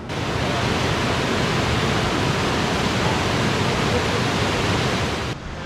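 Rushing water of a mountain creek running high with snowmelt, a steady dense roar that starts and cuts off abruptly.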